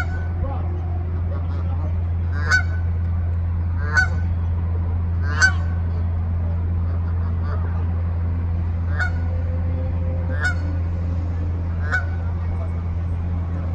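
Canada goose giving short honks, about seven in all, mostly a second and a half apart with one longer pause in the middle, over a steady low hum.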